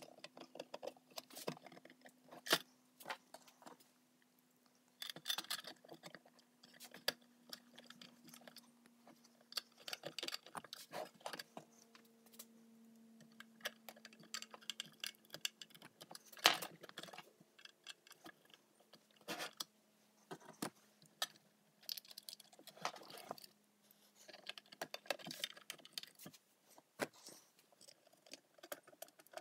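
Irregular small clicks, scrapes and rattles of hands fitting a wah pedal's bottom cover and driving its screws back in, with a faint steady hum underneath.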